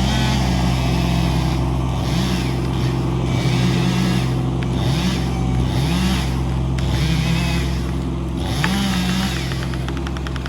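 An engine running steadily and revved again and again: about seven quick rises in pitch, each held briefly before dropping back. Fine rapid ticking comes in near the end.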